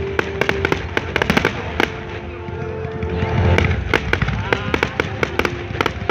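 Fireworks display: rapid crackling bangs and pops going on throughout, with a heavier, deeper boom about three and a half seconds in.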